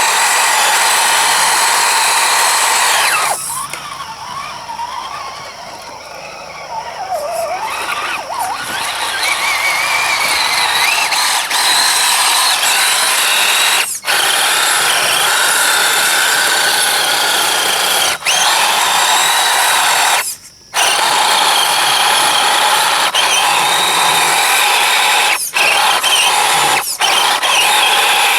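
Axial SCX10 1/10-scale RC truck's electric motor and geartrain whining as it drives, the pitch rising and falling with throttle. The sound drops away briefly several times.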